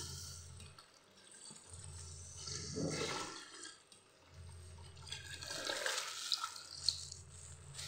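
Milk pouring in a thin stream into a metal pot of rice, splashing in two spells, about two and a half seconds in and again from about five seconds, with a few sharp drips near the end.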